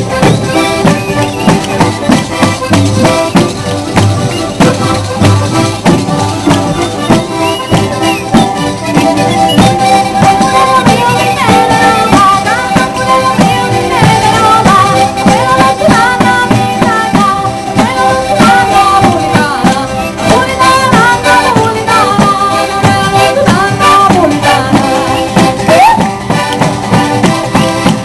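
Live southern Italian folk music: a tammorra, the large frame drum with jingles, beaten in a fast driving rhythm, with accordions playing along. From about ten seconds in, a woman sings the melody over it.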